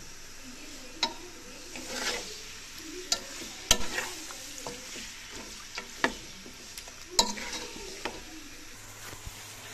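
Chicken pieces frying in oil with onions and spices, sizzling as they brown, while a steel spoon stirs them with several sharp knocks and scrapes against the pan.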